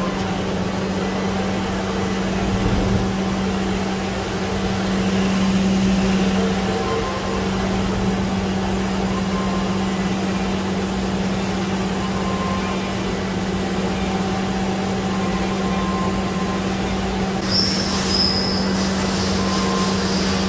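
Spindle of a Mazak Variaxis i-700 5-axis machining center running steadily, a constant hum with one strong low tone. About three seconds before the end a higher whine joins in as the trunnion table's axes move.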